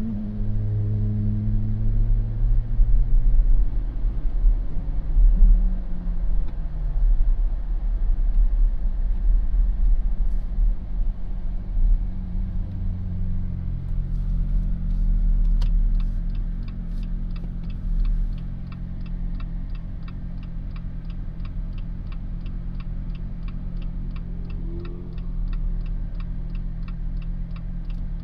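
Jeep engine and road rumble while driving, settling quieter and steadier as it comes to a stop. From about halfway a turn-signal indicator clicks steadily, about three clicks a second.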